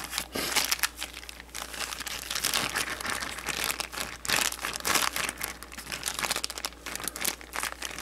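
Zip-top plastic bag crinkling irregularly as hands squeeze and knead raw eggs inside it to beat them.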